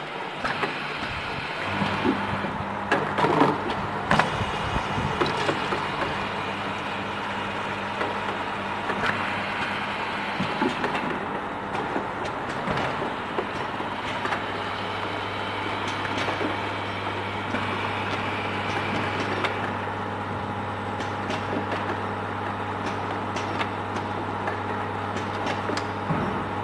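Automatic bottle filling and capping line running: a steady low machine hum that starts about two seconds in, with frequent clicks and knocks from the pneumatic filling and capping parts and the plastic bottles on the conveyor.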